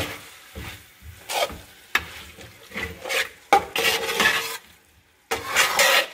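Metal spoon stirring and scraping vegetables around a large metal pot in irregular strokes. The longest and loudest strokes come about three and a half seconds in and again near the end.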